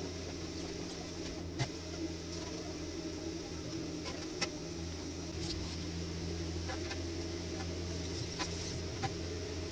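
Synthetic rattan cord being pulled and wrapped around a metal swing-chair frame: soft rustling with a few sharp clicks and taps as the cord and frame knock together, over a steady low hum.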